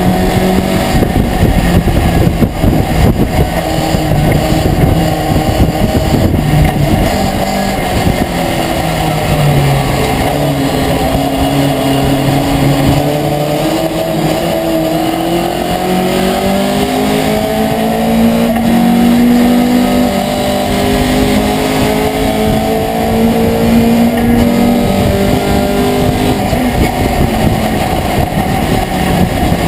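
Racing pickup truck's engine heard from inside its cabin, the revs climbing and dropping again and again through gear changes and corners, over a steady rush of road and wind noise.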